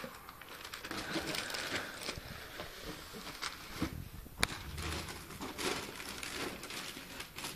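Gift wrapping paper crinkling and tearing as a present is ripped open by hand, in an irregular run of rustles and sharp crackles.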